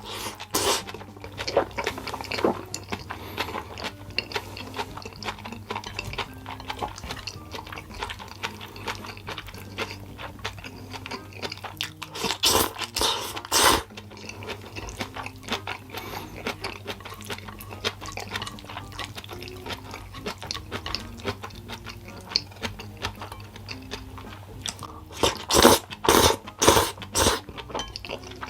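Close-miked chewing and biting of noodles, with a steady run of small wet clicks and a few louder bursts about halfway through and again near the end, over quiet background music.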